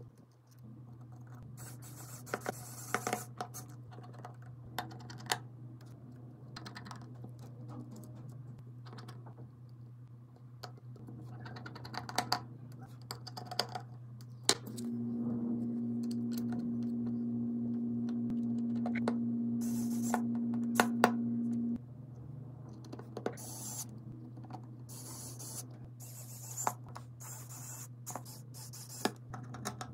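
Light clicks and taps of small tools and phone parts being handled during iPhone repair work, over a low steady hum. About midway a small machine runs with a steady pitched hum for roughly seven seconds, then cuts off suddenly.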